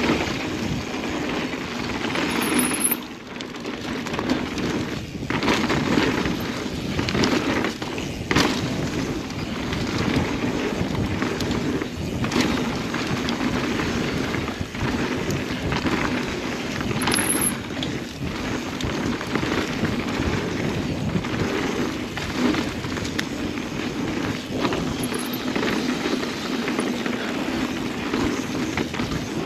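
Mountain bike rolling fast along a dirt singletrack: a continuous rush of tyre and wind noise, broken by frequent sharp knocks and rattles as the bike hits bumps.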